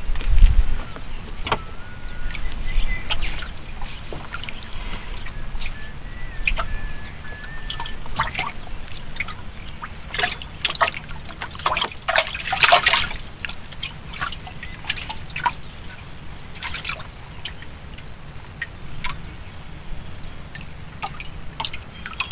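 Water trickling and dripping around a small fishing boat, with scattered light clicks and splashes that bunch together about eleven to thirteen seconds in.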